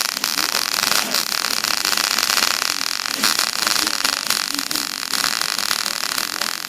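Electric arc welder crackling and sizzling steadily as a weld bead is laid.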